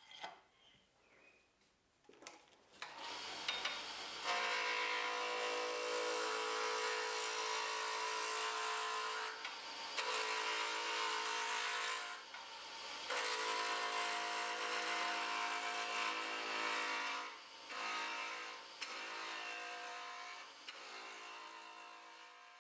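Carba-Tec wood lathe running while a turning tool cuts the spinning wood. The sound starts about three seconds in, breaks off briefly several times, and fades out near the end.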